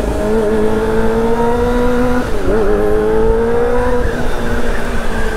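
Kawasaki inline-four sport bike engine pulling under way through a quiet, round-sounding exhaust. The pitch slowly rises, dips briefly about two and a half seconds in, climbs again and eases off near the end, with wind rumble underneath.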